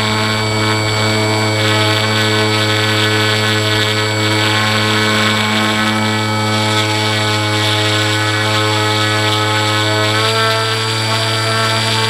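Electric motor and propeller of a Zeta Phantom FX-61 flying wing running with a steady whine in flight, heard from a camera mounted on the airframe, with air rushing past. The pitch steps up slightly about ten seconds in as the throttle is raised.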